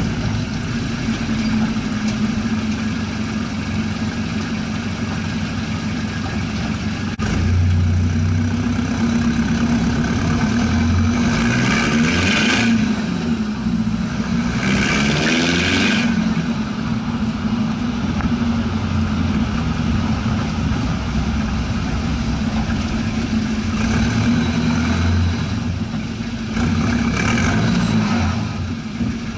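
Ford Ranger MK2's WL-T turbodiesel engine heard at the tailpipe as the truck drives along, pulling and easing off, with the revs dipping and rising again about halfway through.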